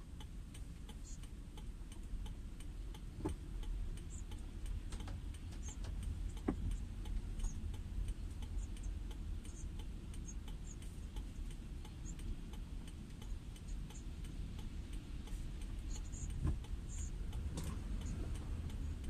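Car cabin sound in slow traffic in the rain: a steady low rumble from the car, with faint, irregular ticks of raindrops hitting the roof and windshield.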